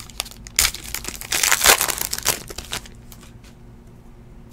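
Foil trading-card pack wrapper crinkling and tearing as it is ripped open. It is loudest about a second and a half in and dies down after about three seconds.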